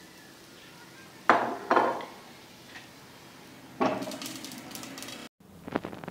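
A glass pan lid with a metal rim clanking against a tawa: two sharp knocks, then a third as the lid is set down over the pan, ringing on for about a second and a half before it cuts off suddenly.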